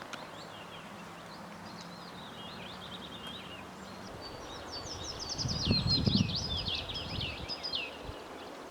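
Small songbirds twittering in quick runs of chirps that grow louder and busier in the second half. From about five and a half seconds to near the end there is a low rustling rumble, the loudest sound.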